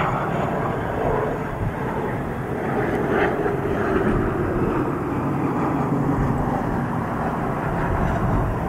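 Cessna Citation II business jet's twin Pratt & Whitney JT15D turbofans on landing approach: a steady jet rumble, with a tone that slides slowly down in pitch as the jet passes. Gusty wind buffets the microphone throughout.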